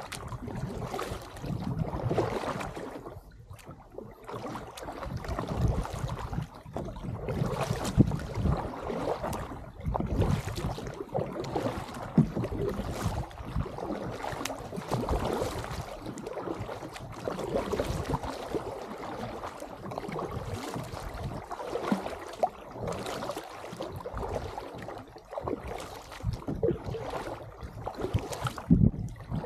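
Double-bladed paddle dipping and splashing into the water on alternating sides as a kayak is paddled along, with water washing past the hull. Wind rumbles on the microphone throughout.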